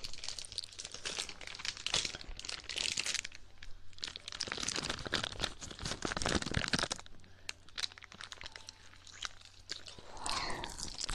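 Close-miked ASMR ear-licking mouth sounds: dense, irregular wet clicks and crackles right at the microphone, thinning out for a couple of seconds about two-thirds of the way through.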